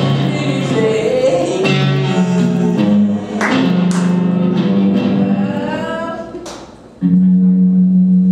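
Live soul-jazz band music: an archtop electric guitar accompanies a woman's wordless singing, with gliding vocal lines. Near the end the sound fades away, then a loud steady held note comes in suddenly.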